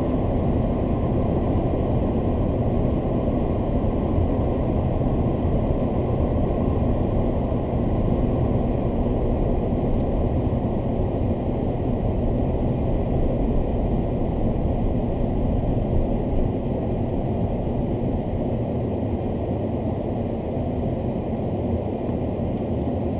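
Steady engine and tyre road noise of a car driving, heard from inside the cabin through a dashcam microphone. It eases slightly near the end.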